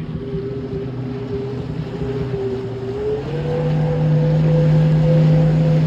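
Jet ski engine running under way, with water and wind rushing. About three seconds in the engine note steps up in pitch and gets louder as the throttle opens, then holds steady.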